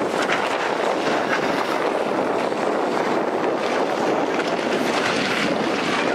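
Bus engines running as the buses drive around the racetrack, a steady noisy drone mixed with wind on the microphone.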